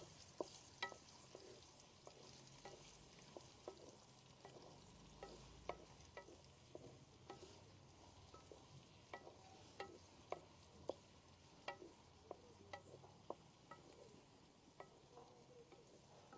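Sliced onions frying in oil with cumin seeds in a karahi: a faint sizzle with small, irregular crackling pops.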